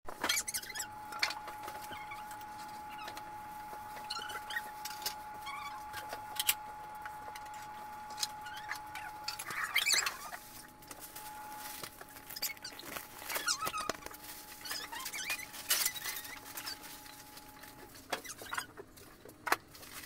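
Clicks, light knocks and plastic-bag rustling from groceries being handled and put away in a refrigerator. A faint steady tone runs underneath and stops near the end.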